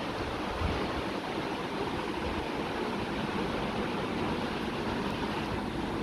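Steady rushing background noise with no distinct events.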